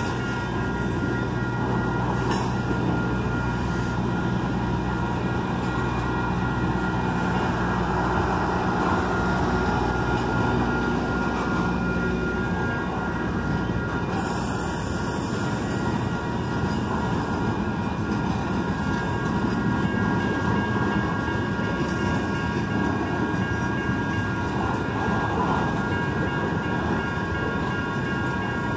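Freight train cars rolling steadily past a grade crossing: continuous wheel-on-rail rumble and clatter, with a steady high-pitched squeal from the wheels.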